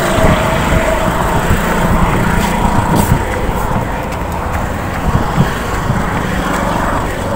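Steady city road traffic: car engines and tyres going past on the street, with a low rumble throughout.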